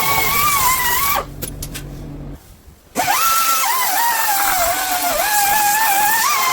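Angle grinder grinding surface rust off a car's steel sill: a loud whine whose pitch wavers as the disc is pressed on. It stops about a second in, then spins back up with a rising whine and carries on grinding.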